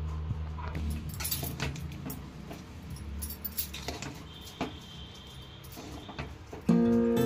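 Steel spoon scraping and clinking against the metal pressure cooker as the cooked biryani rice is stirred and fluffed, in short irregular strokes. Background music with guitar comes in near the end.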